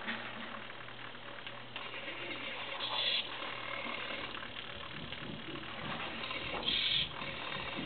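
Hobby servo motors of a homebuilt robot arm whirring as the arm swings and lifts, with two brief louder, higher-pitched bursts, about three seconds in and near the end.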